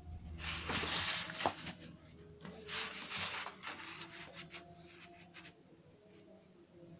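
Pencil and black metal ruler rubbing and rustling on kraft paper as a line is drawn and the ruler is slid to a new spot. There are two louder rustling bursts of about a second each, one shortly after the start and one about three seconds in, then quieter scrapes.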